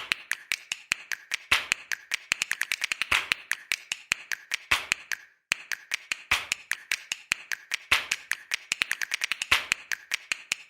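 Irregular sharp ticks and taps, several a second, with a brief cut to silence about five seconds in.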